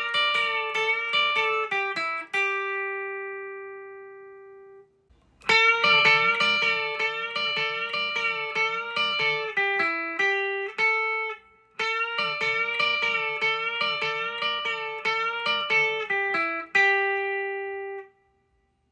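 Electric Telecaster bridge pickup played through a Vox AC10 amp: picked single-note phrases, each ending on a held note that rings out and fades. After a short pause about five seconds in, the sample switches to the other pickup of a blind comparison between the stock Telecaster bridge pickup and a Lindy Fralin High Output replacement, and a phrase is played twice.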